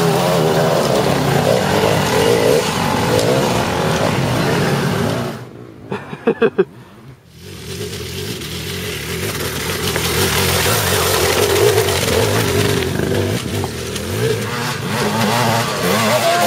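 Off-road motorcycle engines revving, their pitch climbing and falling. About five seconds in the sound drops away, broken by a few short, sharp blips, then rises again to a steady loud running.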